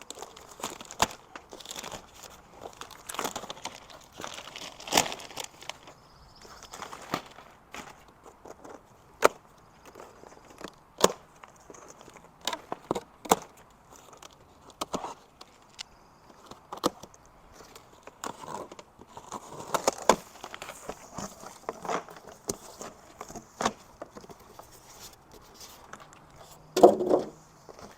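Cardboard box and plastic packaging being opened and pulled off a new portable fridge: tearing, crinkling and scattered knocks and clicks, with a louder thump near the end.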